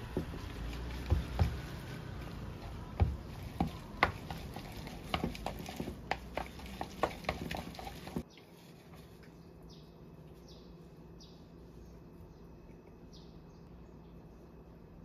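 Wooden spoon stirring blanched glass noodles with seasoning in a clear bowl: wet squishing with sharp clicks of the spoon against the bowl. About eight seconds in it cuts to a quieter stretch with faint high chirps about once a second.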